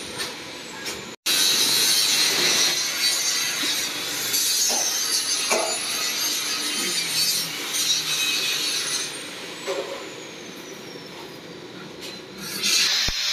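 Angle grinder grinding steel. About nine seconds in it is switched off and its whine falls as the disc spins down.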